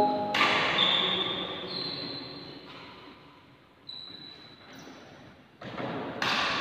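Court shoes squeaking on the hall floor as the players shift position, several high squeaks over a reverberant background. Movement gets louder near the end.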